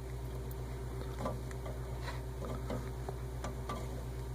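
Faint, irregular clicks and taps of a threaded fitting being unscrewed by hand at the water heater's drain plumbing, over a steady low hum.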